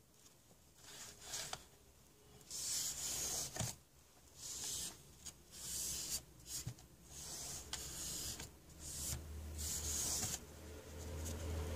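Tissue paper rubbing over the laser lens and tray of a laptop DVD drive, in a series of short scratchy wipes, cleaning off dust. A low steady hum comes in near the end.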